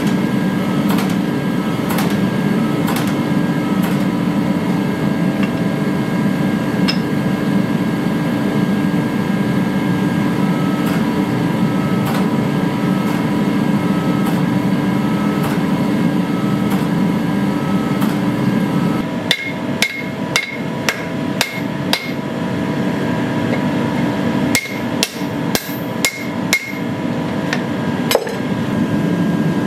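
Steady drone of a hydraulic forging press running while a hot steel billet is squeezed between its dies, with faint knocks about once a second. About two-thirds in the drone stops and a hand hammer strikes hot steel on an anvil, each blow ringing: about seven quick blows, a short pause, about six more, and a single blow near the end.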